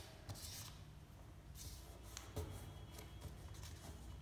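A sheet of paper rustling and creasing under the fingers as it is folded, in a few soft brushes, over a low steady hum.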